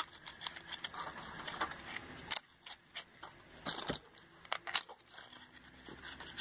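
Small cardboard nail-polish boxes handled in the hands: scattered light clicks, taps and short rustles of the packaging, with one sharper click near the middle.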